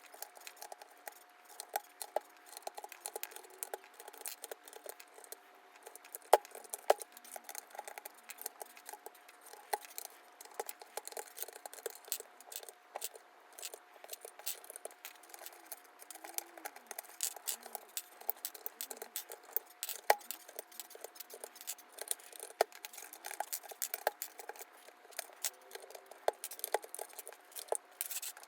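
Hard plastic PBT keycaps clicking and clinking against one another as they are handled, in many irregular sharp clicks.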